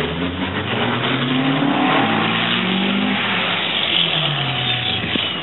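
Racing truck and racing pickup truck engines revving and accelerating on track, the engine pitch rising and falling more than once.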